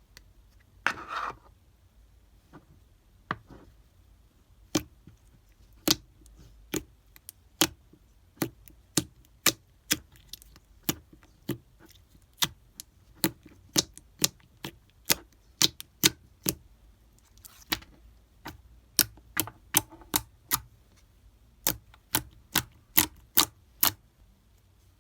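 Slime being pressed and poked, making sharp pops and clicks at an uneven pace of about two a second, with a short crackly squish about a second in.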